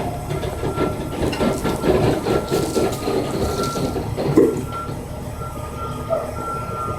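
Yard truck (terminal tractor) running, a steady rumble with rattling and knocks, one louder knock about halfway through. Over it comes a faint, steadily repeating high beep.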